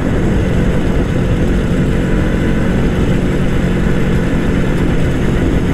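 Vintage two-stroke motorcycle engine running at a steady cruising speed while riding, heard with rushing air noise.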